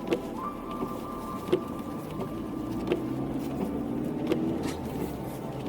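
Car running with a steady mechanical hum and a few held tones, and a sharp tick about every second and a half.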